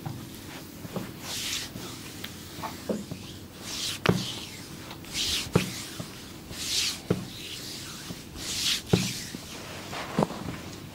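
Hands massaging a body: a rubbing swish followed by a short sharp smack, repeated about every second and a half.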